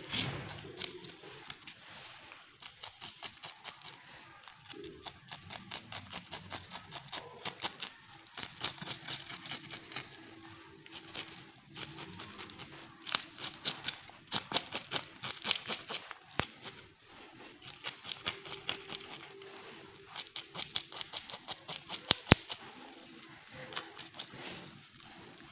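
A knife scraping the scales off a whole fish on a wooden chopping block, in quick rhythmic strokes of about five a second, coming in bursts with short pauses. One sharp knock stands out about three seconds before the end.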